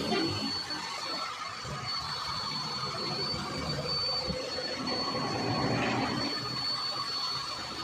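Handheld electric hot-air blower running steadily as it is played over the face of a cricket bat: a fan hiss with a thin, constant high whine.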